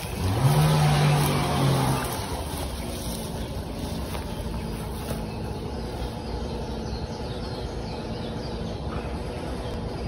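A motor hum rises in pitch and holds for about two seconds, then fades into a steady rushing background with faint high bird chirps.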